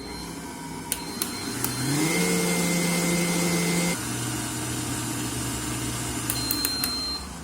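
Electric stand mixer motor of a Yasomi kitchen robot running. It spins up with a rising hum about two seconds in, holds a steady higher speed, drops to a lower speed about four seconds in, then winds down near the end. A few sharp clicks come just before it starts and again before it stops.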